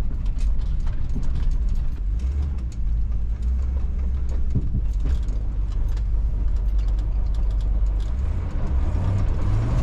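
Chevy K5 Blazer on the move, its engine and drivetrain giving a steady low drone; near the end the engine note rises and grows louder as it accelerates.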